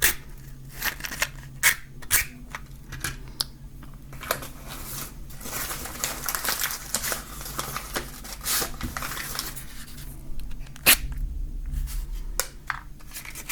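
Matches being struck against the striking strip of a matchbox: repeated short scratchy rasps and sharp clicks, with a loud click about eleven seconds in. The matches catch and almost go out at once, seemingly from a slightly defective box.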